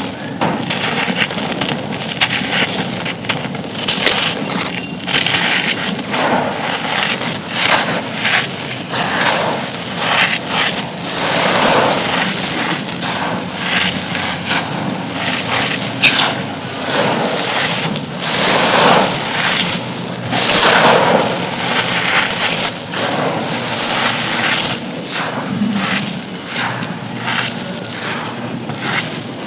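Broken pieces of dry black concrete slab crumbling and crunching, a dense, irregular run of sharp crackles and crunches.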